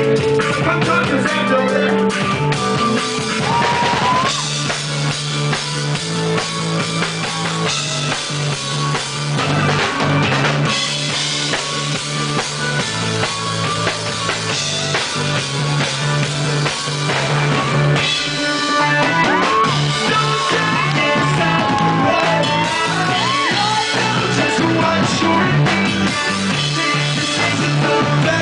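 Live band playing an instrumental passage: drum kit, a steady repeating bass line, and gliding lead notes that come in twice.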